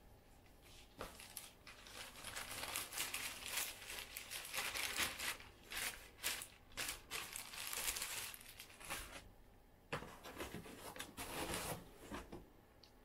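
Plastic packaging bags crinkling and rustling as they are handled and pulled out of a packed cardboard box, in irregular bursts with a short lull about nine seconds in.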